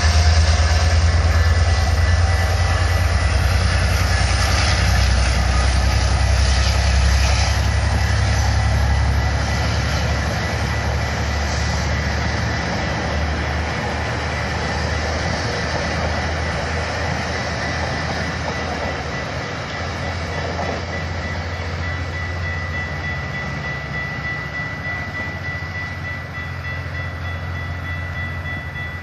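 GO Transit commuter train running past on the rails, a low rumble that fades steadily as the train moves away.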